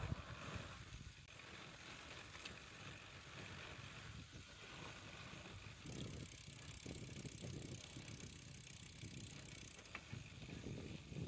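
Pedal bicycle being ridden along a road, picked up by a handlebar-mounted camera: a low, steady tyre-and-road rumble and hiss with an occasional faint tick or rattle from the bike. The hiss brightens about six seconds in.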